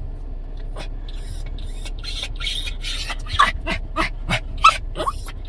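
Yorkshire terrier whining and yipping in short, quick bursts that come faster and closer together in the second half: an over-excited, agitated small dog.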